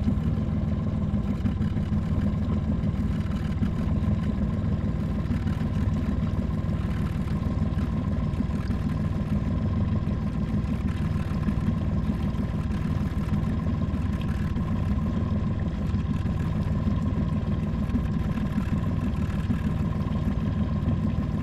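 A boat motor running steadily at low speed: an even low hum with a thin steady whine above it.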